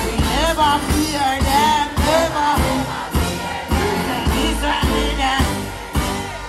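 Live dancehall performance: a male vocalist singing into a microphone over a live band with a steady, bass-heavy beat.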